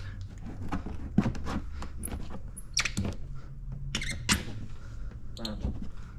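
Scattered short squeaks and light taps of wet paint protection film being pressed and rubbed into place around a truck fender's edge.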